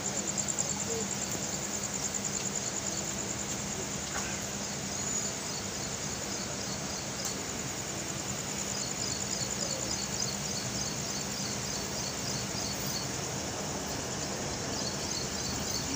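Insects chirping in a high, fast-pulsing trill over the steady low hum and noise of a train moving slowly along the track.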